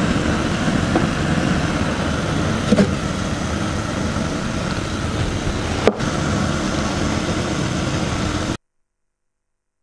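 Pot of water at the boil on the stove, a steady noise, with a few light knocks of a wooden spoon against the pot as it turns simit dough rings in the water. The sound stops abruptly near the end.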